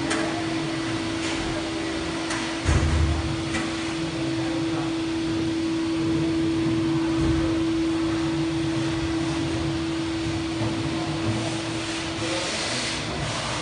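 Steady machine hum from running equipment in an electrical cabinet, carrying one steady drone tone that fades out near the end. A brief low bump of handling noise comes about three seconds in.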